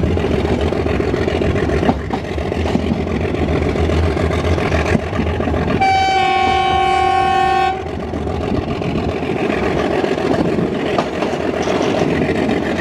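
Diesel locomotive hauling a passenger train, its engine running with wheels rumbling and clacking over the rails. The horn sounds one long steady note for about two seconds midway.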